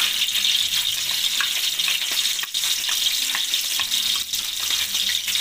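Chopped garlic sizzling in hot oil in a wok, a steady hiss with scattered small crackles and pops.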